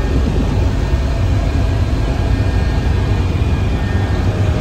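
Helicopter running close by: a loud, steady rumble with a faint steady whine above it.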